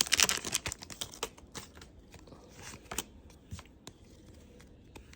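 A Pokémon booster pack being opened and its cards handled: rapid small clicks and rustles of wrapper and card, dense for about the first second and then thinning to scattered ticks and scuffs.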